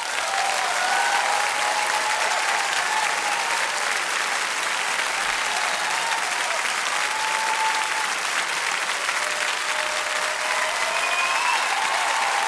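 A crowd applauding, dense and steady, with a few faint voices over it; it stops abruptly.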